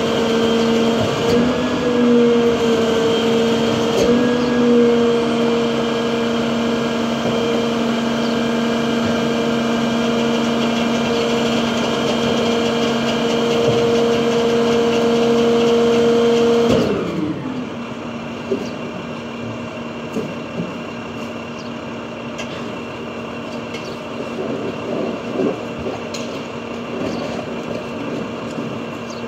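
International garbage truck with a Heil rear-loader body, its engine held at a raised, steady speed with a steady hum, typical of running the rear packer's hydraulics. About seventeen seconds in the pitch falls and it drops back to a quieter idle, with a few light knocks after.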